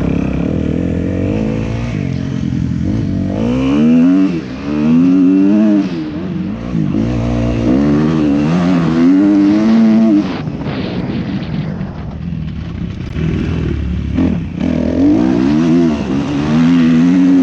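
Kawasaki KX250F's single-cylinder four-stroke engine revving under hard riding, its pitch climbing and dropping over and over as the throttle is opened and closed. Twice in the second half it drops off briefly before pulling again.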